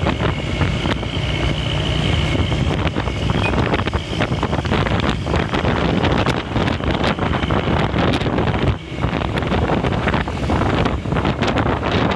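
Murni Jaya intercity bus on the move, its engine and road noise running steadily with wind buffeting the microphone.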